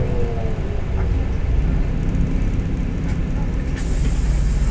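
Cabin noise of a LiAZ-5292 city bus under way: a steady low engine and road rumble, with a faint whine falling in pitch at the start.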